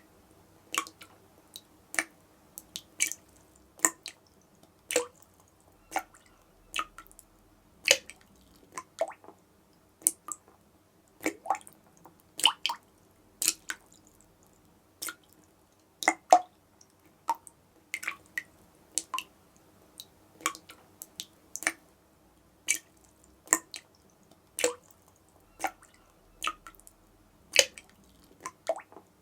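Tap dripping into water, one sharp plop after another at an uneven pace of roughly one or two drops a second.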